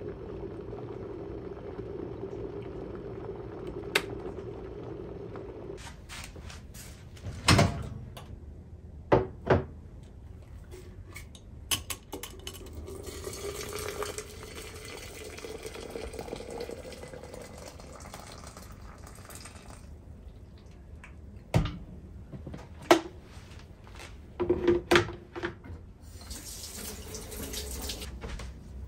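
Water poured from a kettle into a glass pitcher over tea bags, its pitch rising as the pitcher fills, amid running water. Several sharp clacks and knocks of glass and kitchenware are heard, the loudest a few seconds in and again later on.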